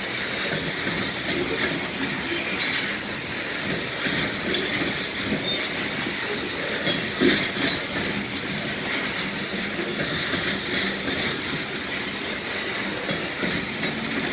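Loaded coal hopper cars of a freight train rolling past: a steady noise of steel wheels running on the rails, with one sharper knock about seven seconds in.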